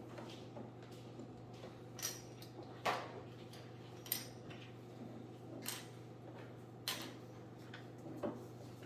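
Plastic LEGO pieces clicking and clinking as they are handled and pressed together: a handful of short, separate clicks spread out over several seconds.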